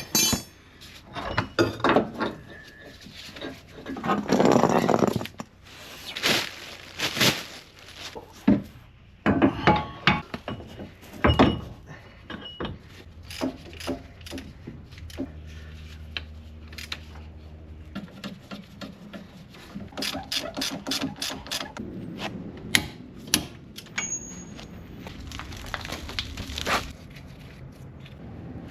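Hand tools and metal parts clanking and clicking in irregular knocks during reassembly of a truck's front CV axle and suspension, with a quick run of ratchet-like clicks about twenty seconds in.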